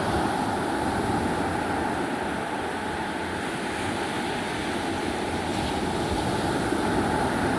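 Sea waves washing steadily onto the shore as the tide comes in, with wind rumbling on the microphone.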